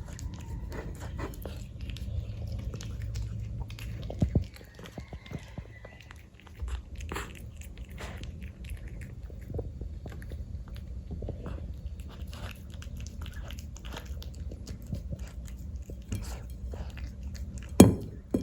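A cat eating tuna in gravy: irregular wet chewing and smacking clicks, with a louder sharp click about four seconds in and another near the end.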